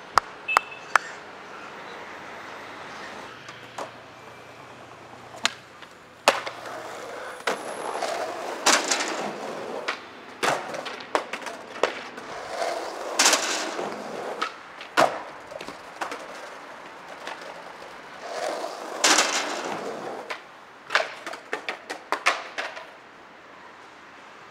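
Skateboard on concrete: the wheels roll in several runs a second or two long, with sharp clacks of the board popping and slamming down, and a cluster of quick knocks near the end.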